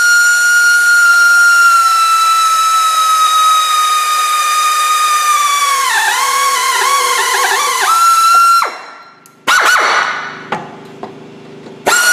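Handheld power drill with a 17/64-inch bit whining steadily as it drills into the vehicle's steel frame. About six seconds in, the pitch wavers and sags as the bit bites under load. It then stops abruptly, gives a short burst a second later, and starts up again near the end.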